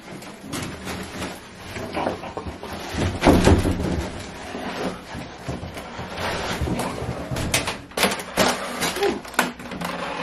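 Rustling and handling noises with several sharp clicks and knocks, from balloons, a cake box and cards being carried and shifted about.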